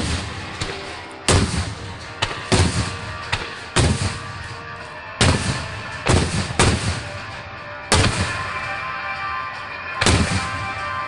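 Aerial fireworks shells bursting, about ten loud booms at uneven intervals, each echoing away, over music playing throughout.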